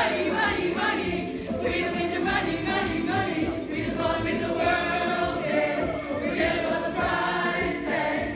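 A group of young women singing and chanting together in unison, loud and lively.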